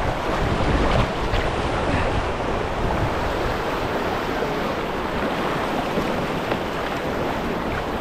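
Fast river current rushing steadily past a canoe running a swift, with wind buffeting the microphone.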